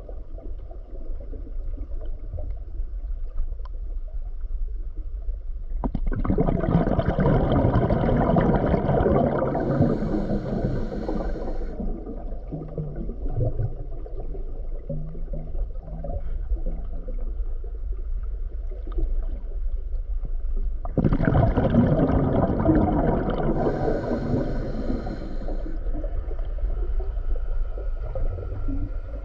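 Underwater sound heard through a camera housing: a steady low rumble, broken twice by a loud rush of bubbling water lasting about five seconds each, starting suddenly about six seconds in and again some fifteen seconds later.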